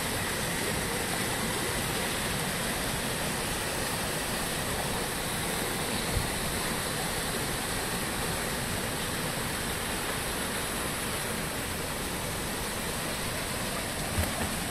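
Steady rush of a rocky stream, water spilling in a small cascade between boulders.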